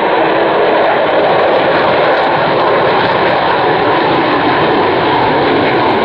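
Avro Vulcan bomber's four Rolls-Royce Olympus turbojets running as the aircraft flies its display overhead: loud, steady jet noise.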